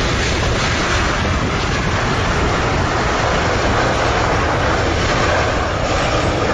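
Boeing 777's GE90 engines and its tyres on the wet runway making a steady, loud rush as the airliner rolls out just after touchdown.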